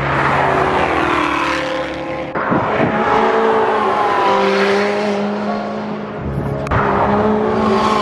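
Race car engines running hard at high revs as cars accelerate past, their pitch gliding up and down through the gears, switching abruptly to a different car's engine about two and a half seconds in and again near the seven-second mark.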